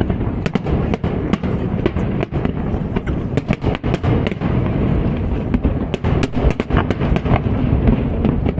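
Aerial fireworks display going off in a dense barrage: many sharp bangs and crackles, several a second, over a continuous low rumble of shell bursts.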